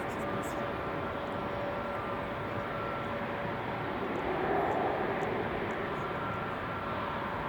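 An Airbus A330-343's Rolls-Royce Trent 700 turbofan engines running, a steady jet rush with faint whining tones that swells briefly about halfway through.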